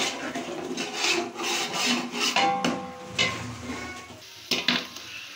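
Metal ladle scraping and stirring thick spice masala against the bottom and sides of an aluminium cooking pot, two to three strokes a second, thinning to a couple of scrapes near the end.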